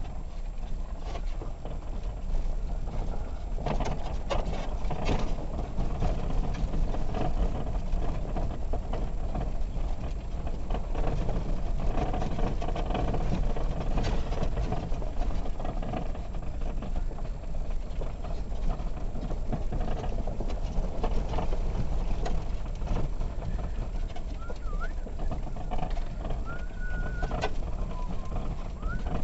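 VW T3 Syncro van driving over a rough gravel track, heard from inside the cab: a steady low engine and drivetrain rumble with repeated knocks and rattles from the bumpy surface. A few short high chirps come in near the end.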